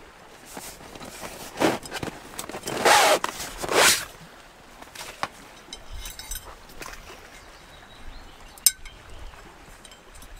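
Camping gear being handled: several rustling scrapes in the first few seconds, then a single sharp metallic clink near the end.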